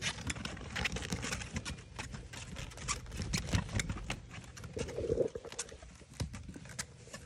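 Puppies' paws padding and scrabbling on a wet trampoline mat: a run of quick, irregular taps, with a brief squeak about five seconds in.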